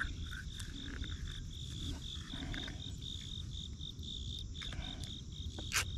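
Insects chirping in a steady, rapidly pulsing trill, over a low rumble of wind on the microphone. A single sharp click near the end.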